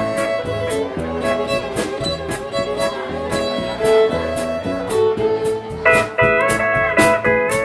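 Live western swing band playing an instrumental break led by fiddle over rhythm guitar, upright bass and a steady drum beat. About six seconds in, a steel guitar comes in with sliding, sustained notes.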